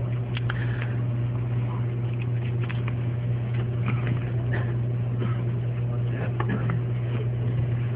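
Steady low electrical hum on the lecture's microphone line, with faint rustling and light knocks of pages and papers being handled at the desk.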